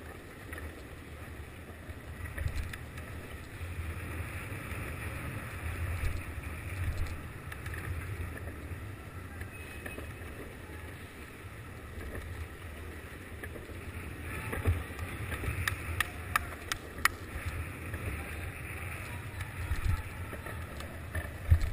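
Skateboard wheels rolling over city asphalt: a steady low rumble with wind buffeting the microphone. A run of sharp clicks and knocks comes about fifteen to seventeen seconds in, and a louder knock near the end.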